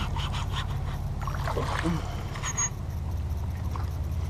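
Steady low rumble of water and wind around a small kayak, with a few light clicks and a brief low voice sound about two seconds in.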